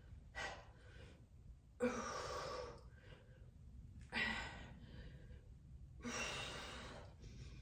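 A woman exhaling hard from exertion, four breaths blown out about every two seconds in time with her dumbbell front raises.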